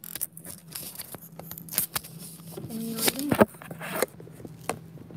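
Handling noise from a camera being moved and fumbled with: rustling and scraping with a string of sharp clicks and knocks. A short pitched sound comes about three seconds in.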